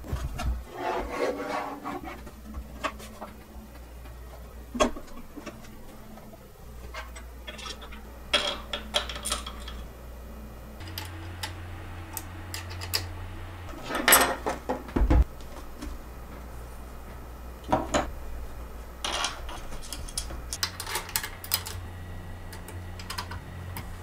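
Stamina Mini Exercise Bike being assembled by hand: scattered clicks, rubbing and knocks as metal bolts are threaded and steel stabiliser tubes are fitted to the frame on a wooden table, with the loudest knocks just past halfway.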